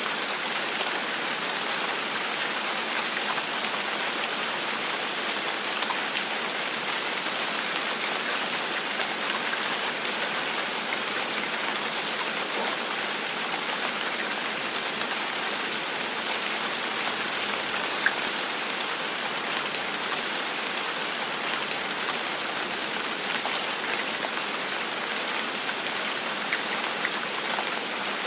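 Steady gentle rain falling on a surface: an even hiss with scattered individual drop patters.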